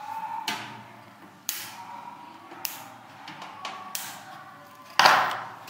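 Plastic cable tie being threaded and pulled around a bundle of PC front-panel wires: a few light clicks and taps, then a short, louder rasp near the end.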